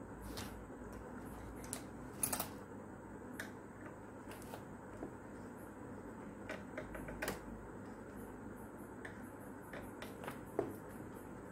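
Irregular light clicks and taps of hand tools and plastic fan parts being handled on a workbench, with a louder clack about two seconds in and another near the end, over steady low background noise.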